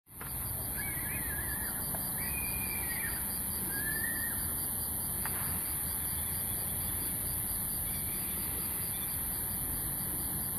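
Steady outdoor night ambience, a low rumble under a constant high hiss. Three short gliding animal calls come in the first few seconds, and a single click about five seconds in.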